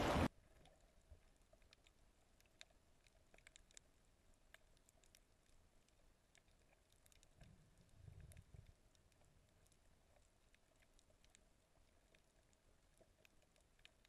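Loud wind on the microphone cuts off abruptly just after the start. It gives way to faint underwater reef sound: scattered sharp clicks and crackles, muffled as heard through an underwater camera housing, with a soft low rumble about eight seconds in.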